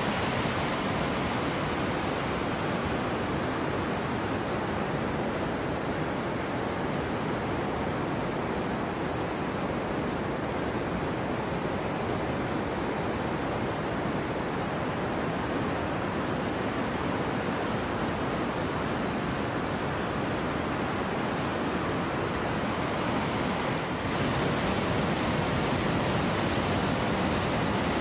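Steady rushing roar of Gullfoss waterfall mixed with wind on the microphone. Near the end it steps up suddenly and grows louder and hissier.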